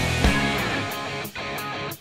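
Background rock music with guitar; the drum beat drops out about halfway through.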